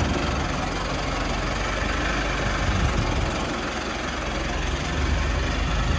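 Mahindra Arjun 605 DI tractor's diesel engine running steadily as the tractor creeps up onto a concrete washing ramp.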